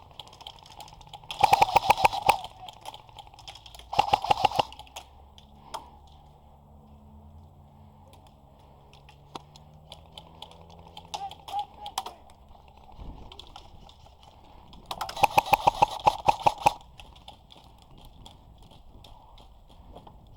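Airsoft gun firing three rapid bursts of sharp, evenly spaced clicks: about a second long near the start, a short one about four seconds in, and a longer one about fifteen seconds in, with scattered fainter clicks between.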